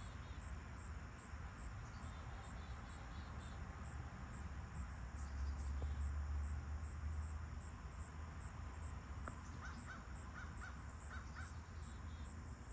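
Dawn outdoor ambience: insects chirping steadily in a regular high-pitched rhythm, with a bird calling a quick series of about six short notes near the end, over a low rumble that swells briefly in the middle.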